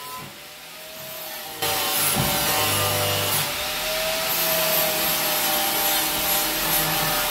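An angle grinder starts about a second and a half in and then runs steadily, grinding metal with a steady whine. It is grinding back old, very thick weld on a car's battery tray.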